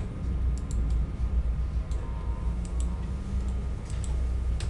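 Steady low hum with a handful of sharp, scattered clicks from someone working a computer.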